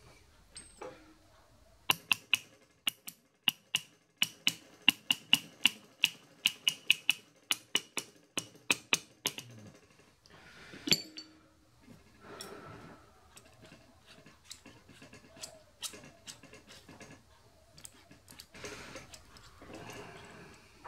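Quick irregular run of light metallic taps and clicks with a slight ring, as a steel dovetail slide and its cap screws are fitted and a hex key is worked. About ten seconds in comes one louder click, then softer scraping and handling of metal parts.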